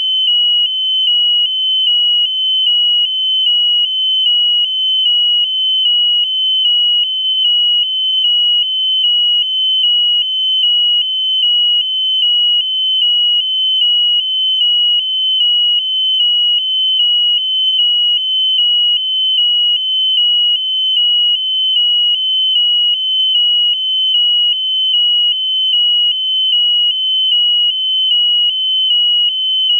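Piezo buzzer on the balloon payload sounding a continuous high-pitched tone, pulsing slightly a little over once a second.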